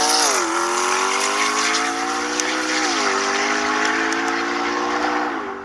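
Car engine accelerating hard through the gears, its pitch climbing, with quick drops at two upshifts, the first just after the start and the second about three seconds in. It cuts off abruptly near the end.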